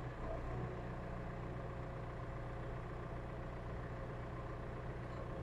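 Heavy equipment engine idling steadily with a low, even hum.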